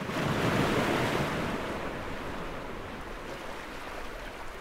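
Ocean surf washing in, swelling up quickly at the start and then settling into a steady, softer wash.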